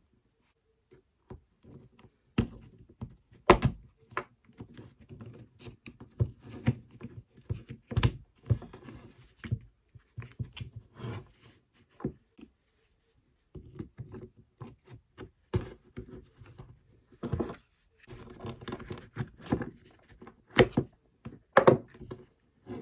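A cordless drill's plastic housing and motor-gearbox assembly knocking and clicking together in irregular taps and clatters as they are handled and pressed into place. The parts do not seat: melted plastic where the rear motor bearing sits keeps the housing from closing.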